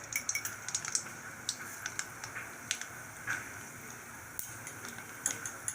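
Mustard seeds spluttering in hot oil in a kadhai: irregular sharp pops over a steady sizzle, the start of the tempering (tadka).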